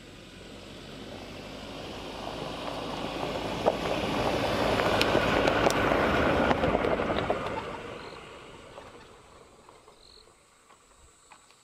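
A 4x4 vehicle driving past close by over rough dirt and grass. Its engine and tyre noise builds up, is loudest about halfway through with a few sharp clicks as it passes, then fades away.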